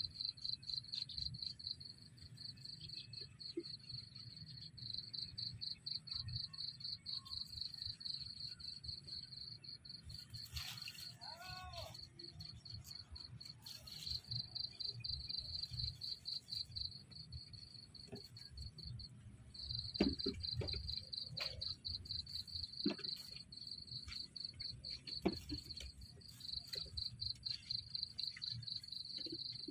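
Crickets chirping in a fast, even, pulsing trill that stops briefly about nineteen seconds in, with a short gliding call near eleven seconds and a few sharp knocks between twenty and twenty-five seconds.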